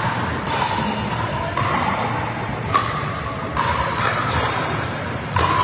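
Pickleball rally: a paddle pops against the plastic ball, the loudest hit about halfway through, over the steady noisy hubbub of a large sports hall.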